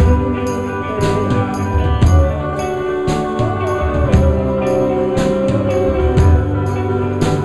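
Live band playing an instrumental passage: electric guitar and sustained low notes over a steady beat, with a sharp percussion hit about twice a second.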